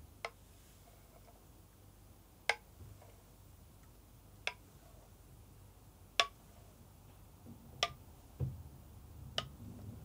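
Six faint, sharp ticks about every two seconds, coming slightly closer together, over quiet room tone.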